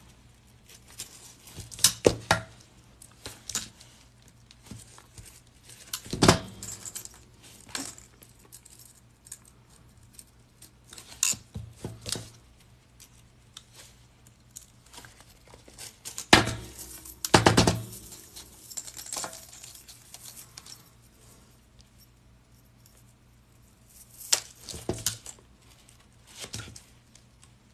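Small metal jump rings clinking and pliers clicking as the rings are closed and worked into a chainmail weave. Sharp, scattered clinks come every few seconds, several in quick succession around the middle.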